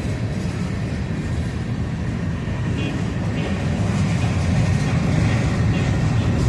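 Freight train rolling past at low speed, a steady low rumble of wheels on rail that grows slightly louder after about four seconds.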